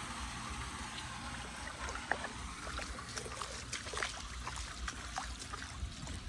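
Floodwater trickling along a street kerb, with small irregular splashes and clicks from about two seconds in, over a low steady rumble.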